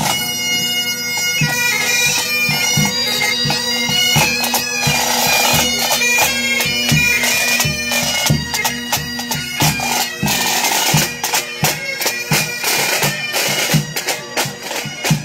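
Pipe band playing: Great Highland bagpipes sounding a tune over their steady drones, with drums beating a regular marching rhythm.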